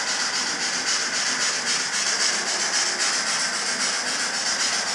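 Model steam locomotive's sound decoder giving an even, rapid steam chuff over a steady hiss as the model train runs along the track.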